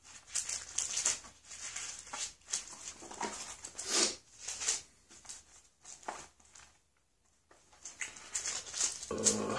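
Bible pages being leafed through: an irregular run of short paper rustles and flicks. A brief duller handling sound comes near the end.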